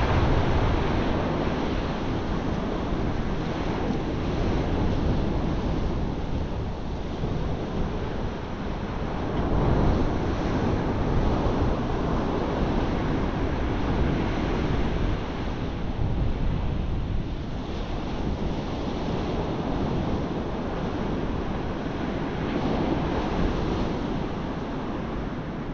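Sea surf breaking on the beach, with wind buffeting the microphone. The noise swells and eases a few times as the waves come in.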